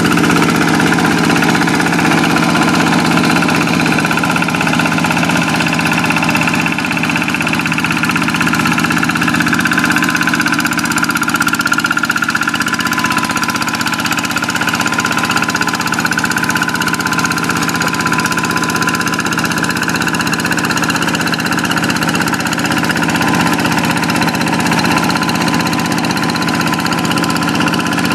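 Single-cylinder Kubota diesel engine of a Quick hand tractor running steadily at an even speed.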